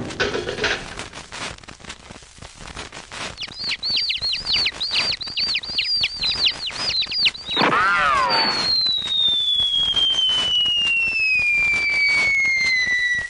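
Hanna-Barbera cartoon sound effects: a run of quick whistle chirps at about four a second, then a short wobbling whistle sweep, then one long whistle falling slowly in pitch over about five seconds, the classic cartoon falling whistle.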